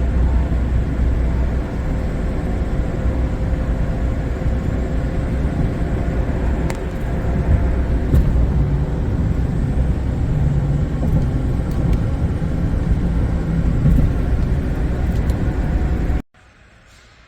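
Steady mechanical running noise with a heavy low rumble and a few faint steady tones, cutting off abruptly near the end.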